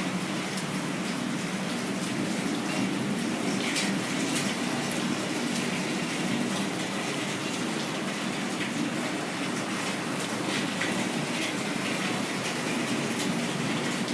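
Heavy rain falling steadily, with floodwater rushing along the street and spilling over the pavements.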